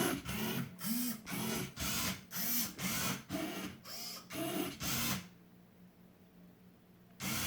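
Servo motors of a 3D-printed Otvinta Rubik's cube solving robot whirring in short bursts, about two a second, each with a whine that rises and falls. This is the grippers turning and repositioning the cube while it photographs each side. The whirring stops about five seconds in, and one more burst comes at the very end.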